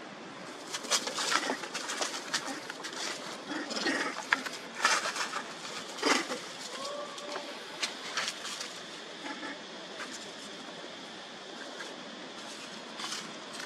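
Irregular rustling and scuffling in dry leaf litter as long-tailed macaques move and tussle, with short sharp strokes clustered in the first half; a bird calls in the background, with a short gliding call about seven seconds in.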